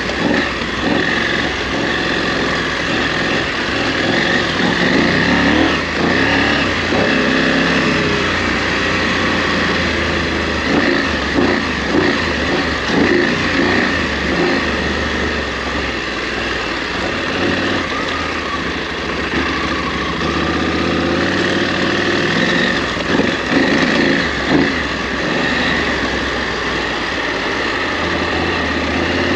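KTM 890 Adventure R's parallel-twin engine running under way on a trail, its revs rising and falling with the throttle, with several short surges of revs.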